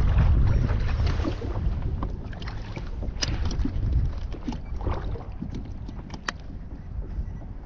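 Wind rumbling on the microphone and water sloshing around a kayak at sea, loudest at first and easing off, with a few sharp clicks.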